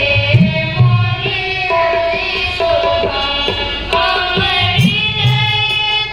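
Girls singing together into microphones, accompanied by tabla whose low bass strokes glide up in pitch, over the held notes of a harmonium.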